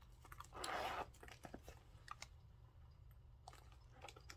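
Quiet handling noises of a small leather purse: one brief rustle a little under a second in, followed by a few light clicks and taps.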